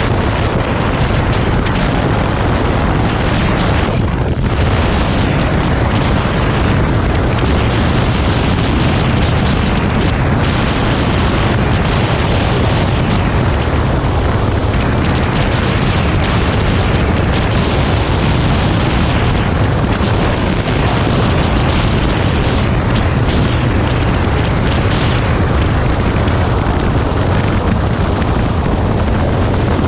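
Wind buffeting the microphone of a camera on a motorcycle riding at road speed: a loud, steady rush with a deep rumble underneath.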